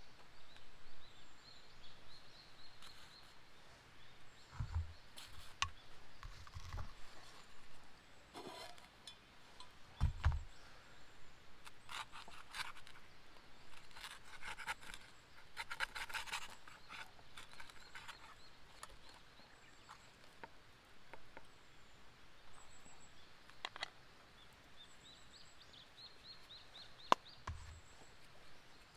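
Outdoor ambience with small birds chirping and trilling at intervals, scattered sharp clicks, a few dull thumps and a stretch of rustling in the middle.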